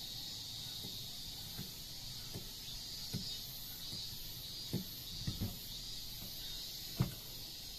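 Faint, irregular knocks of a kitchen knife meeting a wooden cutting board as it scores a squid mantle, roughly one a second, the loudest near the end, over a steady high hiss.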